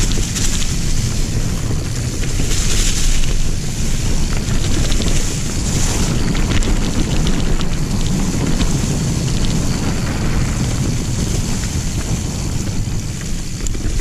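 Wind rushing over the action camera's microphone during a fast mountain-bike descent on a dirt singletrack, over the low rumble of the tyres on the trail and scattered rattling clicks from the bike.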